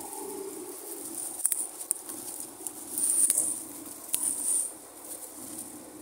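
Cut brush and branches crackling, with a few sharp snaps, under a Komatsu D85ESS-2 crawler bulldozer as it moves, over a steady low hum.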